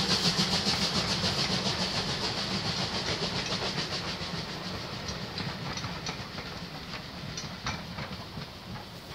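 Steam-hauled passenger train running away, a rapid rhythmic clatter that fades steadily, with a few sharp clicks in the second half.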